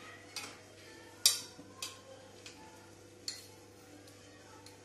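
Kitchenware being handled: glass ingredient bowls and a spoon clinking and knocking, about five separate sharp clicks, the loudest about a second in.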